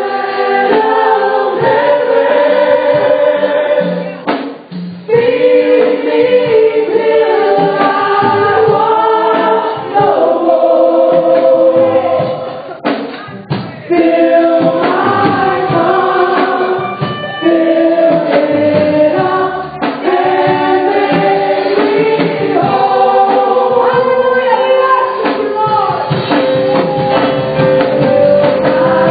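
Gospel music: a choir singing a worship song.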